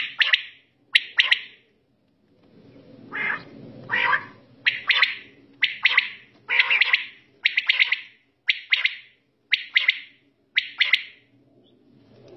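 Caged quails (batair) calling together: short, sharp calls of two or three quick notes, repeated about once a second.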